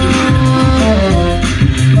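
Saxophone playing a melody over a backing track with a steady bass beat and light percussion; the sax steps down through a short descending phrase about halfway through, then holds a note.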